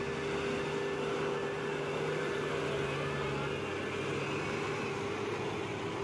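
The engine of a self-propelled chip spreader running steadily while it works alongside its supply truck: an even mechanical drone with a steady held tone.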